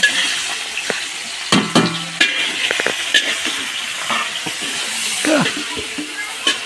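Sliced onions sizzling in hot oil in a large metal wok, with a metal spatula scraping and clinking against the pan as they are stirred.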